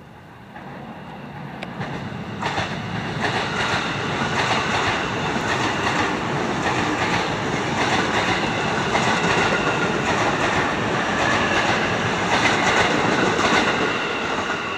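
KRL electric commuter train passing close by, its wheels clattering over the rail joints. The sound swells over the first couple of seconds, holds loud and steady, then eases a little near the end.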